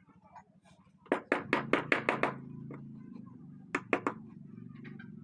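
Hammer or mallet striking a chisel into a wooden door panel to cut a design: a quick run of about eight sharp knocks, then a few more near the end, over a steady low hum.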